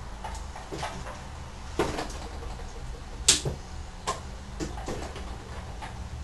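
Scattered knocks and clunks of a motorcycle being wheeled into a flat, with a thump about two seconds in and one sharp, loud click about three seconds in, over a low steady hum.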